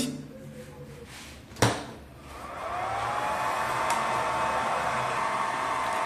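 A single sharp click, then an electric motor spinning up on the variable frequency drive setup: a whine rises in pitch over about a second and levels off into a steady running hum with air noise.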